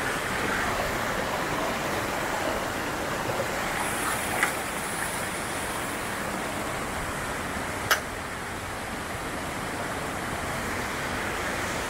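Steady rush of a mountain creek and waterfall pouring over rocks, with two short sharp clicks about four and eight seconds in.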